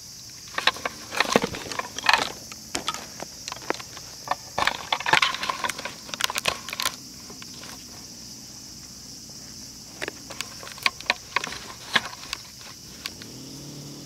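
Irregular clicking and rattling, dense for the first several seconds and again a little after the ten-second mark, over a steady high hiss.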